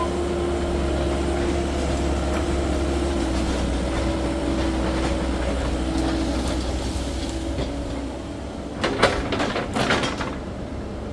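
Cat 308E2 mini excavator running steadily with a constant whine, then a quick cluster of clanks and knocks about nine seconds in, after which the machine runs quieter.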